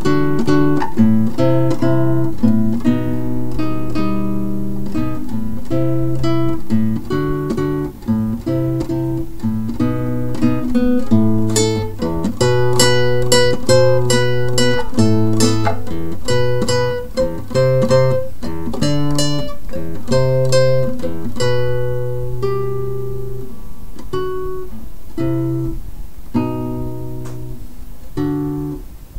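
Instrumental music played on acoustic guitar, a steady run of plucked notes and strummed chords.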